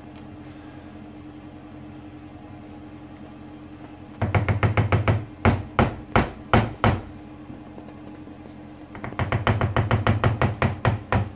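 A silicone spatula with a wooden handle knocking against the side of a plastic mixing bowl as pumpkin pie filling is stirred briskly: two runs of quick knocks, about five a second, the first starting a few seconds in and the second near the end.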